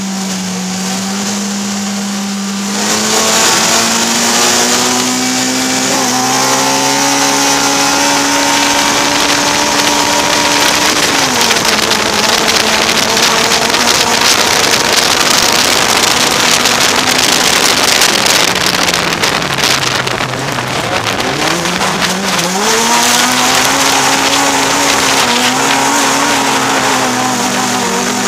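Autocross race car engine heard from inside the cockpit: held at steady revs, then about three seconds in it pulls away, its pitch climbing in steps through the gears over a loud rush of dirt-track noise. Around twenty seconds in the revs drop away and then climb again.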